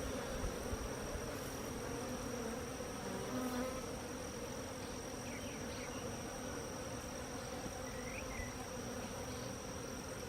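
A disturbed colony of honey bees buzzing steadily around an opened, knocked-over hive.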